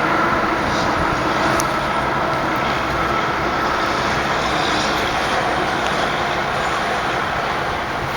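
Steady road noise of a vehicle on the move: tyre and engine noise that keeps an even level throughout.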